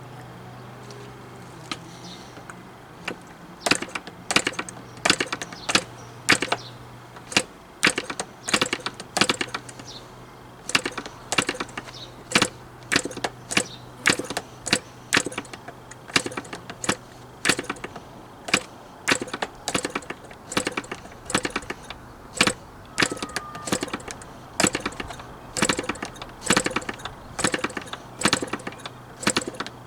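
Progress AeroWorks PAW .29 model diesel engine being hand-flicked over by its propeller in a start attempt, giving a sharp click about twice a second, starting a few seconds in. The engine does not run.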